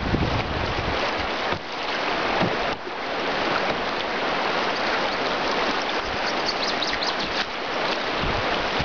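Fast river current rushing and splashing along the side of a loaded canoe, a steady wash of water noise, with gusts of wind rumbling on the microphone near the start and near the end.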